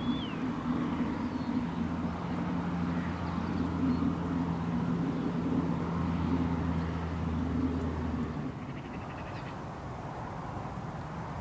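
A motor vehicle's engine running steadily, a low hum that fades away about eight seconds in, with a brief bird chirp at the very start.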